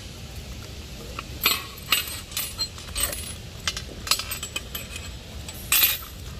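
Small metal parts clinking and knocking as hex keys and brush-cutter fittings are handled and set down on a tile counter: a string of short, irregular clicks, the loudest about a second and a half in and near the end.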